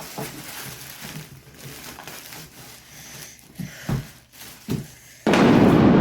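Plastic packaging being handled and crinkled, with a few light knocks, then a sudden loud burst of rustling noise about five seconds in.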